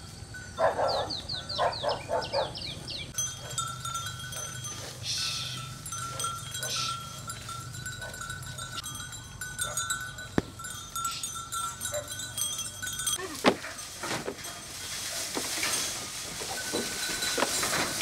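Goats bleating in the field, with steady high chirping in the background. In the last few seconds there is a run of knocks and rustling.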